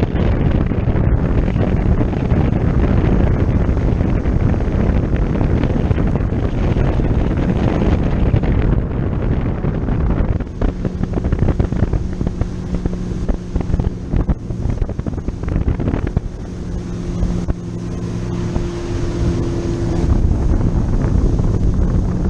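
A boat motor running under way, with wind buffeting the microphone; a steady engine hum comes through more clearly from about halfway on.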